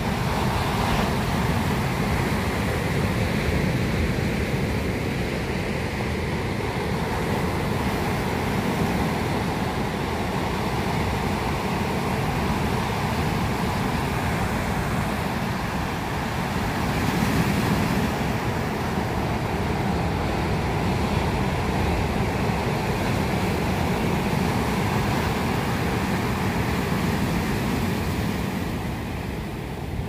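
Ocean surf: waves breaking and washing up the shore, a steady rushing rumble that swells about 17 seconds in.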